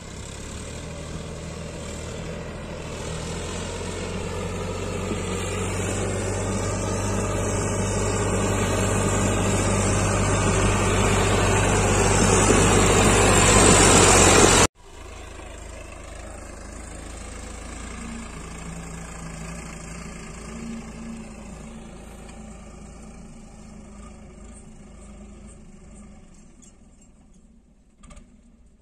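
Sonalika tractor's diesel engine running as the tractor drives up close, growing steadily louder. About halfway through it cuts off abruptly and is replaced by a quieter tractor engine pulling a loaded trailer farther off, slowly fading.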